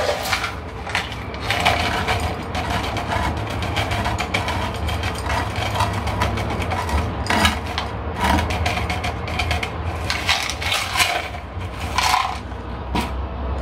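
Small decorative pebbles rattling and clinking as they are scooped by hand from a terracotta pot and poured through a paper scoop onto the soil of a small potted succulent.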